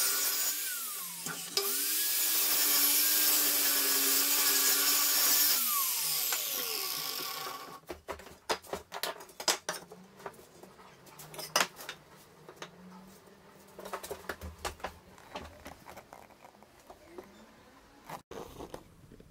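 JCB mitre saw running and cutting an angled mitre through an oak board: the motor pitch dips as the blade bites, recovers, then slides down as the saw winds down about six seconds in. After that, a scatter of light knocks and taps as the cut oak frame pieces are set down and butted together at their mitred corners.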